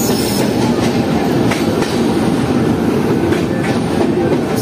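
Passenger train running into a station at speed, heard from on board: a steady, loud rumble of wheels on rail with a few sharp clacks as the wheels cross rail joints.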